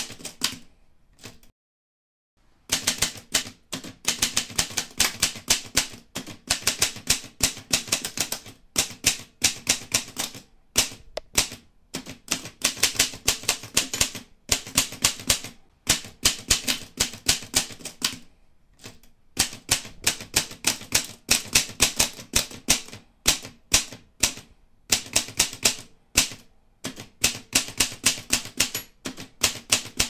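Typewriter keys clacking in rapid runs of keystrokes, broken by short pauses, the sound of text being typed out.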